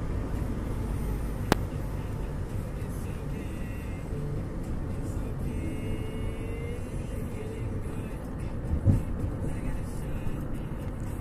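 Steady road and engine rumble heard from inside a moving car's cabin, with a single sharp click about a second and a half in and a dull bump near the end.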